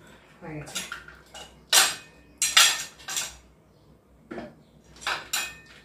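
Knife and soya chaap sticks clinking and scraping against a stainless steel plate: several separate sharp clinks, spread irregularly.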